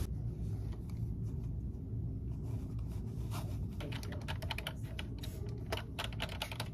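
Typing on a computer keyboard: runs of quick key clicks that come thickest in the second half, over a steady low hum.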